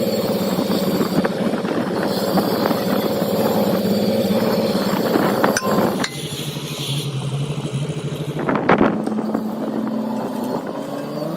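An engine or motor running steadily, with two sharp metallic clanks about three seconds apart around the middle.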